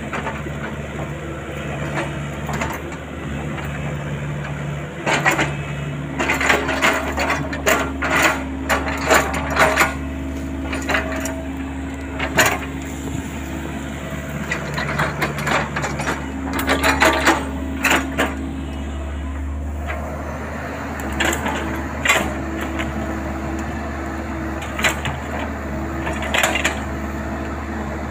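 Compact XCMG hydraulic excavator's diesel engine running steadily under load, its hum stepping up and down in pitch as the hydraulics work the arm. Over it come clusters of sharp cracks and knocks as the bucket breaks through brush, branches and roots.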